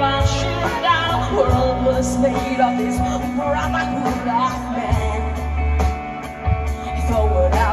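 A live rock band playing amplified through a large PA: electric guitar over sustained bass notes, with drums keeping a steady cymbal beat.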